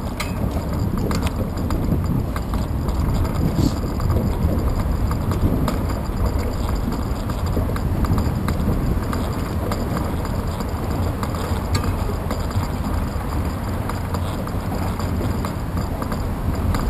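Bicycle riding along a concrete path, heard through a handlebar-mounted GoPro Hero 2: a steady low rumble with scattered small knocks and rattles.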